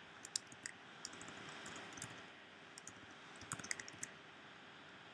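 Faint computer keyboard typing: scattered single key clicks, then a quick run of several keystrokes about three and a half seconds in.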